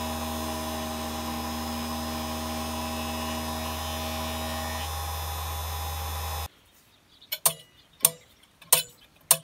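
Steady electrical hum that cuts off abruptly about two-thirds of the way in. Then four sharp clicks about 0.6 s apart as the lathe chuck is turned by hand against a circular-saw-blade indexing detent, one click per step: four clicks index the work 60 degrees to the next flat of a hexagon.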